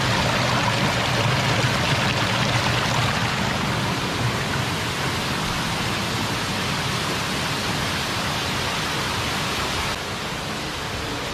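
Man-made waterfall: a steady rush of falling water, a little louder in the first few seconds.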